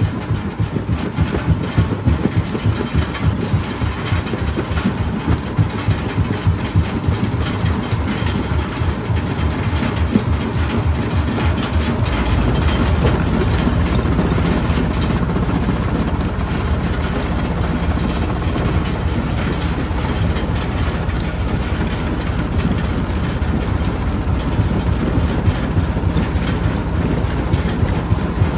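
Stone jaw crusher crushing rock: repeated knocks and cracks of stone breaking between the jaws. About twelve seconds in, a deeper, steadier rumble sets in as a load of rock slumps down into the jaws.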